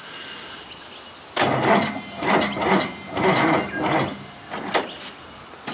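Toyota Landcruiser turbo diesel engine being cranked by its starter on a flat battery: slow, laboured turns that start about a second and a half in and die away a few seconds later without the engine firing.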